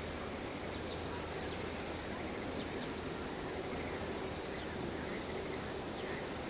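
Steady background noise with faint, short, repeated chirping calls of wild animals.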